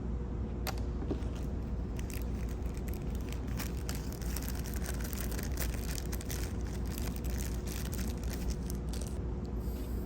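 Quick, irregular small plastic clicks and rattles of Posi-Tap wire connectors being handled and screwed onto turn-signal leads, over a steady low hum.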